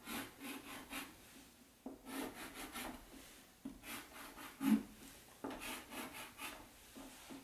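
Chalk drawing on a blackboard: four runs of quick scratching strokes, each about a second long, with short pauses between them.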